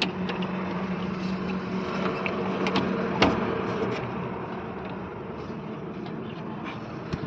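Scattered clicks and knocks of hands handling a truck's plastic fuse box, the sharpest click about three seconds in, over a steady low hum that fades out about four seconds in.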